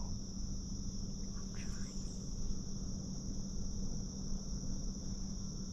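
Steady insect chorus in the woods, a continuous high-pitched trill that does not let up, over a low steady hum.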